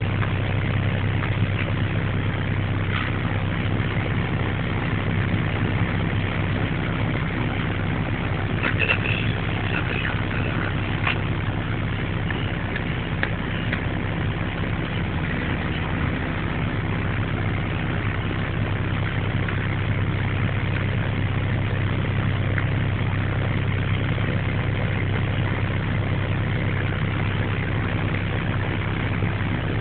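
A heavy engine running at a steady idle, a low even hum with no change in pitch. A few light knocks and clinks come over it in the first half.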